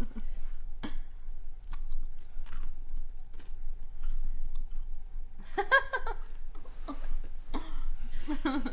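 Scattered single clicks of keys being pressed on a slide-out QWERTY phone keyboard while a text message is typed. Brief indistinct voices come in about two-thirds of the way through and again near the end.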